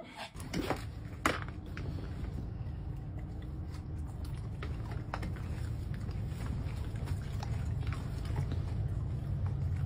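Dogs chewing and crunching treats, with a few sharp clicks, over the steady low rumble of a small shuttle bus's engine.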